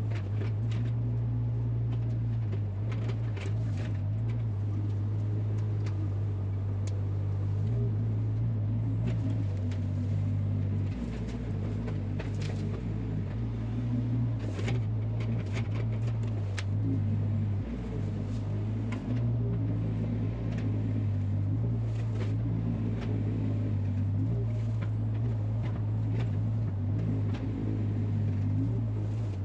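Mini excavator engine running steadily under work, with scattered clanks and knocks.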